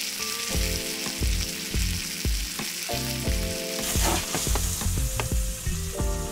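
Steak searing in butter with garlic and rosemary in a frying pan, sizzling steadily as it is basted, over background music with a steady beat.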